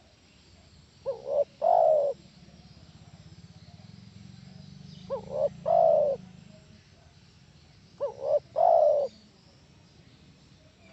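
Spotted dove cooing: three calls, each two short notes followed by a longer note, repeating about every three and a half seconds.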